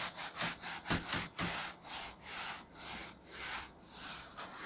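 Whiteboard eraser rubbed back and forth across a whiteboard, a quick run of swishing strokes at about three a second.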